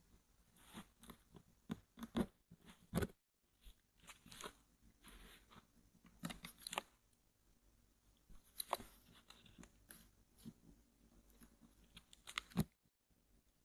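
Close-miked handling of a headphone box and its packaging: quiet, scattered crinkles and scrapes with sharp taps at irregular intervals, the loudest taps around two and three seconds in and near the end.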